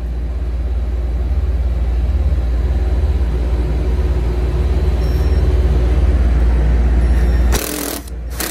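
Cordless impact driver hammering steadily as it turns a 3/8-inch hex-head screw on an HVAC unit's sheet-metal panel, driving it through the hex shaft of a Klein 11-in-1 screwdriver used as a nut driver. The hammering stops abruptly near the end and is followed by a brief harsh burst.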